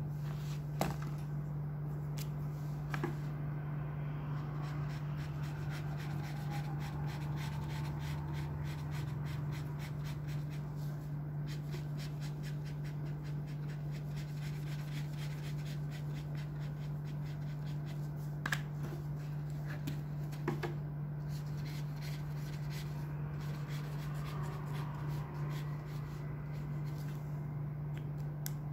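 Pen and marker drawing and shading on notebook paper: faint scratching strokes, quick and dense through the second half, with a few small knocks, over a steady low hum.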